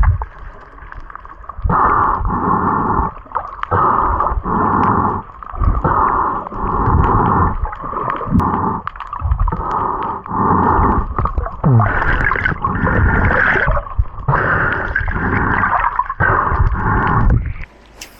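Water gurgling and sloshing in repeated bursts of about a second each, muffled, stopping suddenly shortly before the end.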